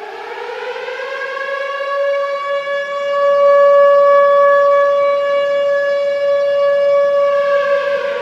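Ice hockey goal siren, air-raid style, winding up in pitch and growing louder over the first couple of seconds, then holding one loud steady tone, and beginning to wind down near the end.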